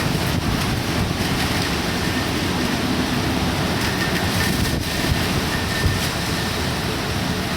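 Typhoon storm noise: wind and rain making a loud, steady rushing that does not let up.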